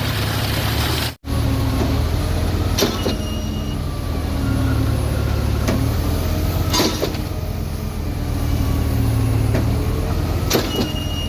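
Heavy diesel machinery running steadily at a concrete pour, most likely the concrete pump or the ready-mix truck, with sharp knocks every few seconds that leave a short metallic ring. The sound cuts out briefly about a second in.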